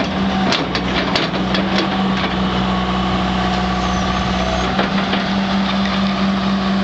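John Deere 120 excavator's diesel engine running at a steady speed with a steady hum. Several sharp knocks in the first couple of seconds.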